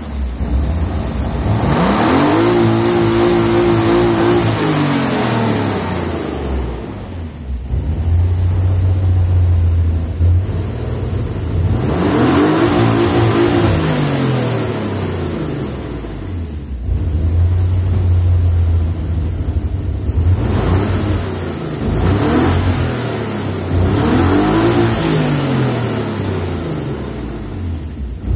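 BMW E36 328is straight-six with an axial-flow rotary valve cylinder head, free-revved from idle to about 7,000 RPM four times. It is held at the top for a second or so on the first two pulls, then falls back to a steady idle between revs. The runs are made to log peak mass airflow while tuning the rotary valve's base angle.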